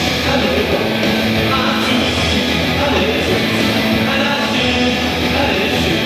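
Loud rock music with singing, playing without a break.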